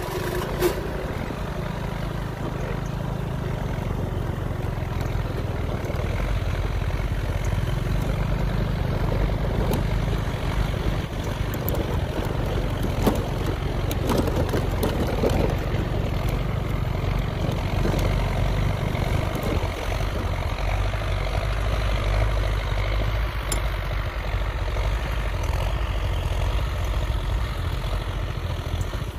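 Belarus 825 tractor's diesel engine running steadily under load as it pulls a disc plough through the soil.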